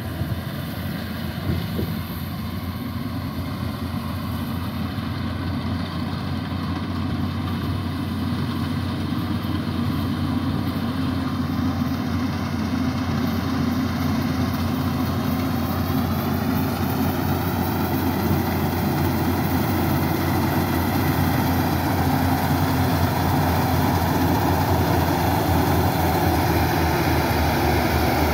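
Yanmar combine harvester's diesel engine and threshing machinery running steadily while cutting rice, growing slowly louder as the machine comes closer.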